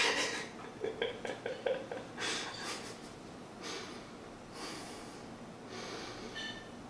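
A man breathing hard through the nose while holding a plank, with a sharp breathy exhale about every second or two. A short run of clicks comes about a second in.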